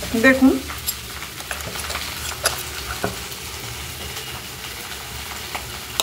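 Mixed vegetables sizzling steadily as they fry in oil, with a few sharp clicks and scrapes of a metal spoon against the steel mixer-grinder jar as the spice paste is scooped.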